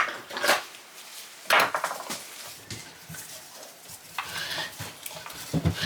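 A handful of small metal tools clinking and scraping against metal engine parts, prying at the old woodruff key on the Sachs 50/3 moped engine's magneto shaft.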